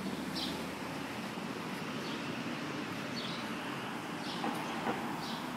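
Steady city street noise with a low hum, and a short high chirp about once every second or so.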